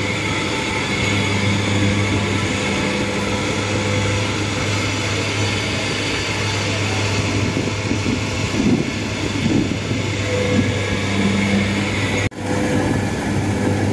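Tracked rice combine harvester's engine running steadily with a deep hum as the machine works through soft, boggy paddy mud. The sound breaks off for an instant a little before the end and then carries on.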